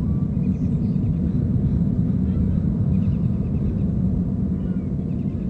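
Steady low rumble of boat engines across the water. Faint rapid chirping from small birds comes through a few times.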